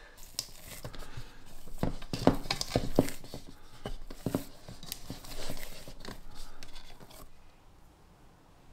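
Sourdough dough being stretched and folded by hand in a mixing bowl: irregular soft squelches and taps that stop about seven seconds in.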